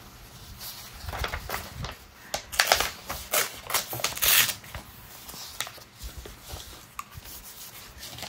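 Sheets of paper rustling and being shuffled by hand in irregular bursts, loudest in the middle.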